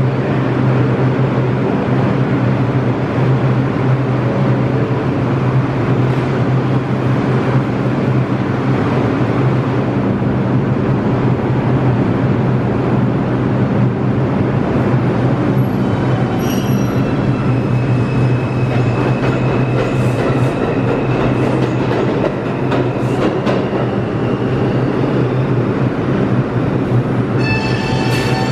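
New York City Subway 2 train of R142 cars in a subway station: a steady low hum and rumble of the train throughout. High, thin wheel squeal comes in about sixteen seconds in and again near the end.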